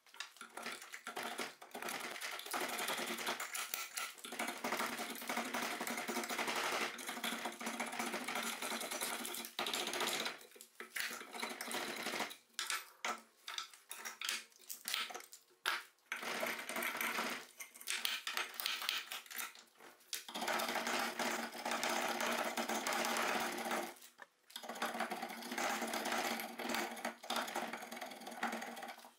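A hand file scraping along a wooden axe handle held in a vise, in quick back-and-forth strokes, with a few short pauses between bouts.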